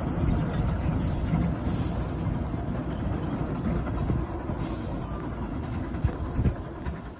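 A 10¼-inch gauge miniature steam train running away along the track, its wheels clattering over the rails in a steady rumble that fades out near the end.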